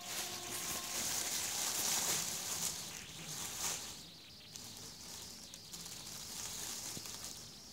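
Thin plastic bag crinkling and rustling as a cat shifts about inside it, with a few sharper crackles. It is louder for the first few seconds and fainter after about four seconds in.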